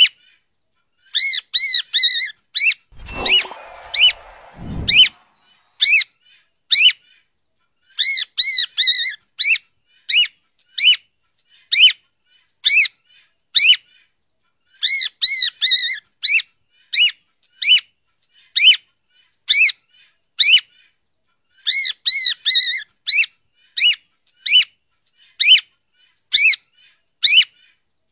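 Cockatiel whistled song: short, sharply rising whistles alternating with warbled chirping phrases, repeated over and over in a regular pattern. A brief low, noisy rumble comes in about three seconds in and lasts about two seconds.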